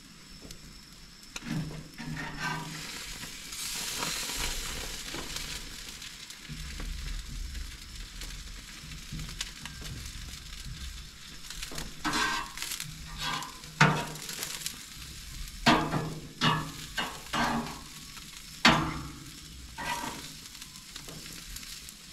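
Burger, onion slices and summer squash sizzling on a gas grill's grates, a steady hiss. About halfway through come a run of sharp clicks and scrapes as metal tongs and a spatula work the food on the grates.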